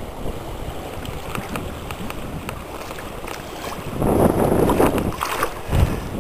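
Steady wind noise on the microphone over river water, with a louder stretch of splashing about four seconds in as a trout is landed in a wooden-framed net.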